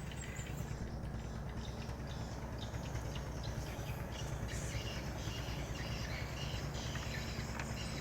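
Outdoor ambience: a steady low rumble with faint, scattered high chirps, likely birds or insects.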